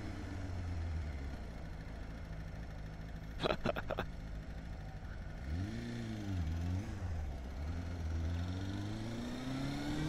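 Honda CB250 Hornet's 250cc inline-four engine under way, its pitch falling as it slows, then revving up and down around six seconds in and rising steadily as it accelerates toward the end. A short clatter of sharp clicks comes about three and a half seconds in, over a steady rush of wind.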